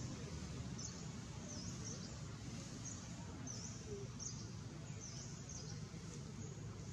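A small bird calling, a short high note repeated about every three-quarters of a second, over a steady low outdoor rumble.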